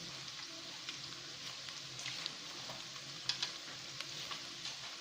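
Vegetables sizzling as they stir-fry in a pan, a steady hiss with a few sharp clicks of a utensil against the pan, two of them close together a little past the middle.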